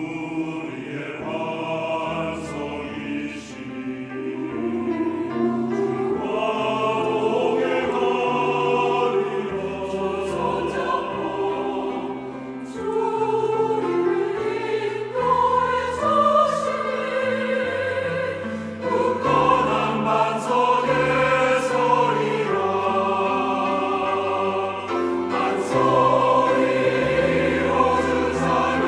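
Mixed church choir of men and women singing a Korean-language choral anthem in parts, with sustained low bass notes beneath.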